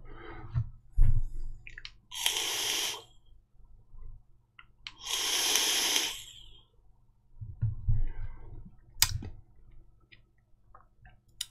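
A person vaping on a Joyetech eVic Primo Mini box mod at about 50 watts: two long breathy rushes of air, each a second or so, as the vapour is drawn and blown out, with a few small clicks and knocks of handling the device.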